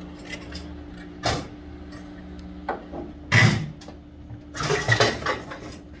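Clatter of the plastic evaporator cover being pulled out of a refrigerator's freezer compartment: a sharp knock about a second in, then louder rattling knocks around three and five seconds in. Underneath, a steady hum from the refrigerator's compressor and condenser fan running.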